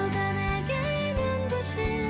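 Background music: a light melodic instrumental with a steady beat.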